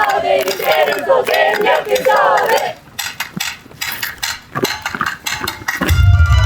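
A group of voices shouting in unison for about the first two and a half seconds, then a quieter stretch of scattered sharp clacks and clicks, before loud music starts again near the end.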